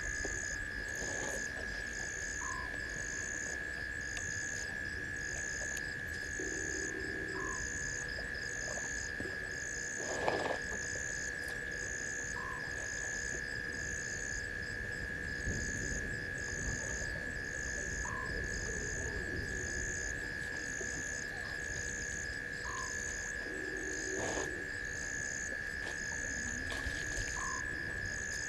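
Night chorus of frogs and insects at a waterhole: a continuous high trill, a regular higher chirp a little over once a second, and a short rising call about every five seconds. One brief louder noise stands out about ten seconds in.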